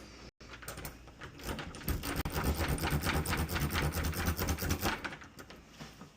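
Bump key being tapped rapidly into a house door's lock cylinder: a fast, even run of metal taps, about eight a second, starting a second and a half in and stopping near the end.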